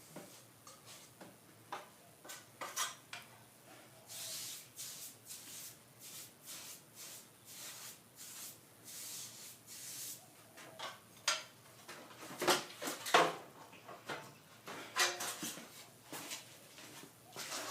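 Metal plastering tools scraping and clinking as plaster is worked into cornice cracks and screw holes: irregular scrapes and taps, with longer scrapes and the loudest strokes in the last few seconds.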